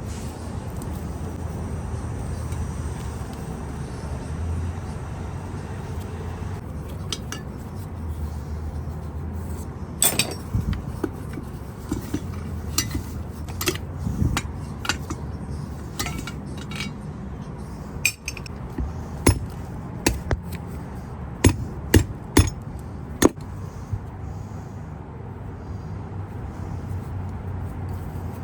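Sharp metallic knocks and clinks of tools against table saw parts during disassembly, a dozen or so scattered strikes in the second half, the loudest close together near the end, over a steady low rumble.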